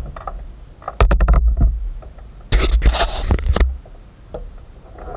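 Rubbing and buffeting noise on the action camera's microphone: two bursts of deep rumble and crackle, about a second in and about two and a half seconds in, with faint ticks between them.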